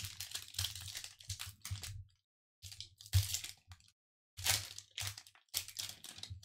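Foil wrapper of a Pokémon Vivid Voltage booster pack crinkling in four short bursts as hands handle and open it.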